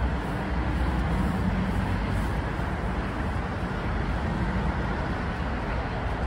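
Amtrak Amfleet passenger coaches rolling past as the train pulls out of the station, a steady low rumble of wheels on rail.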